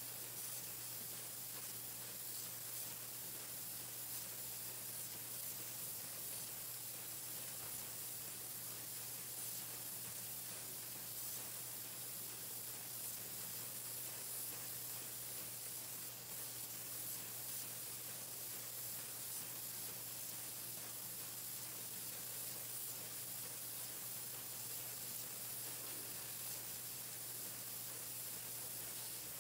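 Pencil painting machine running: a steady, even hiss over a constant low hum, with no separate clicks or knocks.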